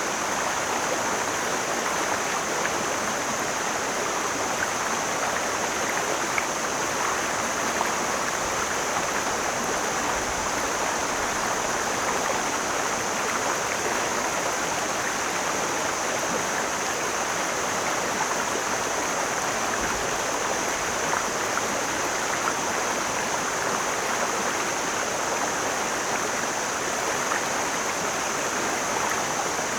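Mountain stream rushing and splashing over rocks in a steady, unbroken flow, with a steady high-pitched hiss running above it.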